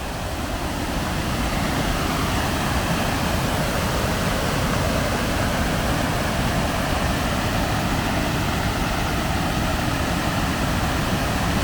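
Waterfall in flood, a steady heavy rush of water swollen with storm runoff, growing a little louder over the first couple of seconds and then holding.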